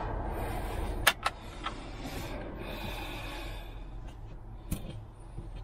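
A drawer latch clicks sharply twice about a second in as it is released. The wooden cabinet drawer then slides open with a brief scraping rush, and a single knock follows near the end.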